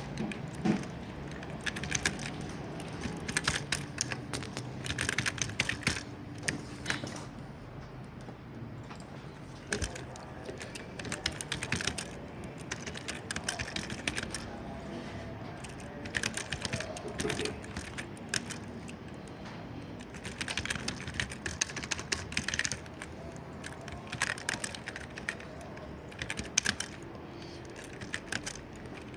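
Typing on a computer keyboard: bursts of rapid key clicks broken by short pauses.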